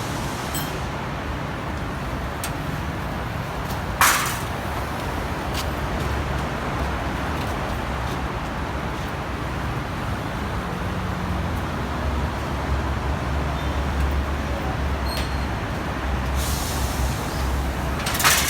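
Honda CB650R inline-four engine idling through an Austin Racing full-system exhaust, a deep steady exhaust note with slight changes in pitch partway through. A single sharp knock comes about four seconds in.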